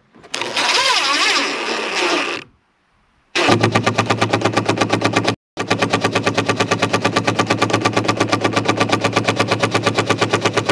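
A DeWalt 20V impact driver on its lowest speed setting drives a 1¼-inch trim screw into ash boards. The motor spins the screw smoothly for about two seconds, then cuts out as the low mode limits out. With the trigger still held it starts again in hammer mode, giving a fast, even rattle of impacts, with one brief break about halfway.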